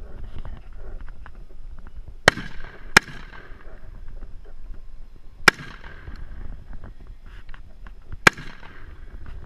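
Gunshots from an AR-15-style semi-automatic rifle: four single aimed shots, the first two less than a second apart, then two more about two and a half to three seconds apart.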